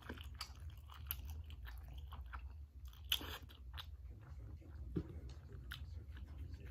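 A person eating instant noodles close to the microphone: slurping in a mouthful of noodles and chewing, with many wet mouth clicks and a louder slurp about three seconds in.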